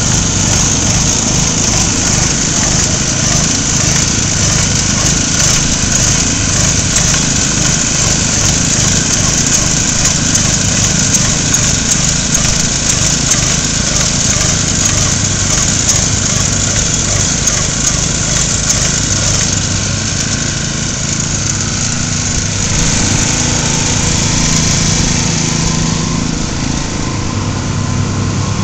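Small gas engine on a walk-behind airless line-striping machine running steadily, with a loud, constant high hiss from the paint spray that weakens a little near the end.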